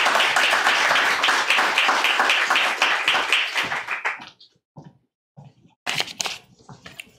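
Audience applauding steadily, then dying away about four seconds in. A few knocks follow near the end.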